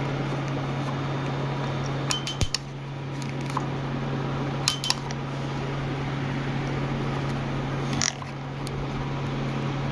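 Pico laser tattoo-removal handpiece firing shots: short runs of sharp snapping clicks, three times, over the steady hum of the running machine. The shots firing show the repaired handpiece is working again.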